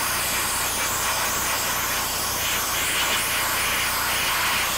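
Sandblaster nozzle blasting abrasive grit onto a rusty steel 1941 Chevrolet dashboard to strip the rust: a steady, loud hiss of compressed air and sand.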